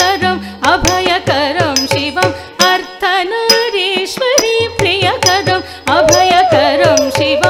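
Carnatic music: an ornamented melody full of sliding, oscillating notes over a steady low drone, punctuated by sharp percussion strokes.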